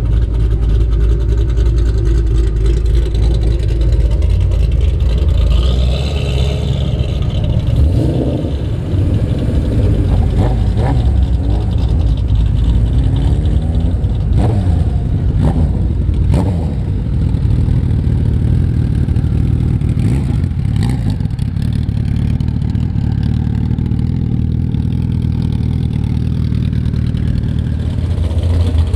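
Engines of show vehicles, a late-model Ford Mustang among them, rumbling steadily as they roll past at low speed, with a few short revs around the middle.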